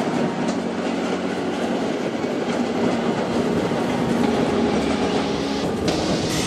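Vintage electric S-Bahn multiple unit passing close by, its wheels running steadily over the rails.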